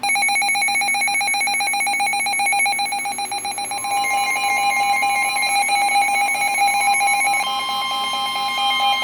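Emergency Alert System attention tone, a loud steady two-pitch alarm tone played over a radio or weather receiver to announce a severe thunderstorm warning. About four seconds in, a second, higher steady tone from another alert joins it.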